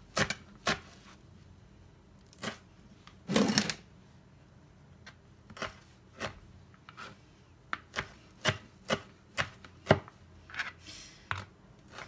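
Chef's knife chopping cilantro on a plastic cutting board: irregular sharp knocks of the blade on the board, sparse at first and coming faster in the second half, with one longer, louder stroke about three and a half seconds in.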